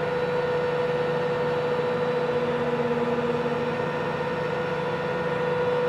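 Heavy vehicle engine idling steadily: an even drone with a constant whine over it, unchanging in pitch and level.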